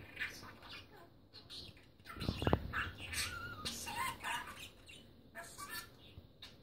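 Budgerigar chattering and warbling in quick short chirps, with a low bump about two and a half seconds in.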